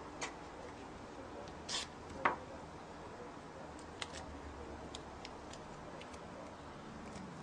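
Scattered small clicks and a brief scratchy rustle from hands handling parts and tools on the motherboard during chip-rework preparation, over a steady low hum.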